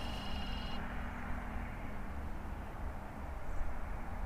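A steady low rumble, with a short, high, trilled animal call in the first second and a faint steady hum beneath it for about three seconds.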